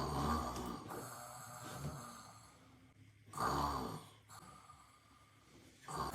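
A person snoring in sleep: two rough snoring breaths, at the start and about three and a half seconds in, each followed by a longer, quieter exhale, with a third snore starting at the very end.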